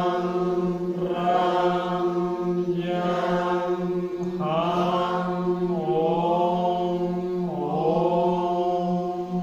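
A group chanting the seven chakra sounds on one held pitch. The vowel colour shifts every second or two, with a few sliding changes partway through.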